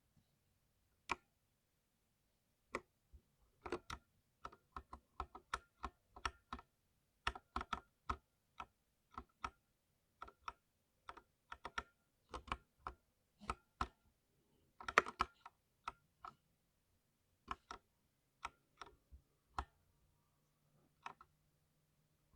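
60% mechanical keyboard being typed on: separate, irregular key clicks, slow at first, with a quick flurry of strokes about fifteen seconds in.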